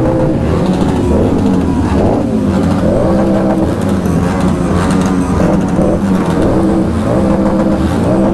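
Motorcycle engines running and revving, a steady mix of engine notes that shift in pitch now and then.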